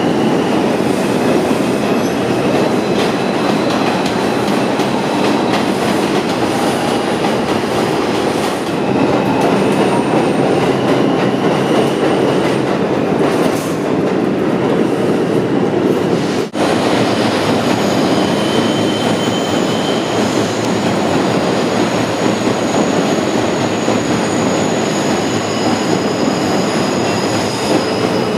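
New York City Subway train running on the rails: a steady loud rumble of wheels and cars, with thin high-pitched wheel squeals coming and going. The sound drops out sharply for a moment a little past halfway.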